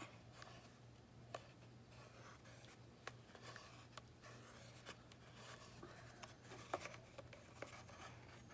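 Faint scratchy rustle of yarn being wound around a cardboard paper towel tube, with scattered light ticks from handling the tube.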